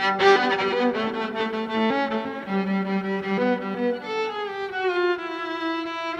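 Violin bowed live, holding long notes over lower sustained string tones, several pitches sounding at once. From about four seconds in, a note slides slowly downward.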